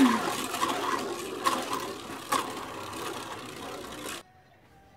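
Hasbro Beyblade Burst Sphinx S4 spinning top whirring as its tip scrapes around a clear plastic stadium floor, with a couple of sharp knocks. It is set in its more aggressive tip mode. The whir fades as the top slows, then stops suddenly about four seconds in.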